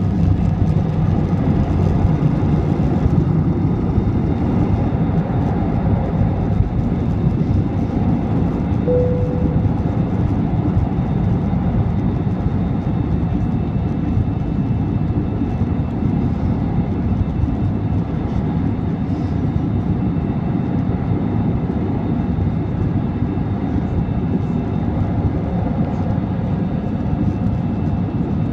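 Cabin noise inside an Airbus airliner on takeoff: the jet engines' steady roar at takeoff thrust, with a heavier rumble from the runway for the first three seconds or so that smooths out as the aircraft lifts off and climbs. A short tone sounds once about nine seconds in.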